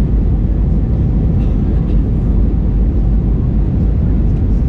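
Steady low rumble of engine and airflow noise inside the cabin of an Airbus A319 with CFM56 engines, descending on approach.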